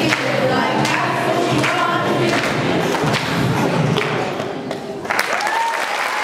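Children's choir singing together, with sharp thumps now and then, breaking off about five seconds in as applause begins.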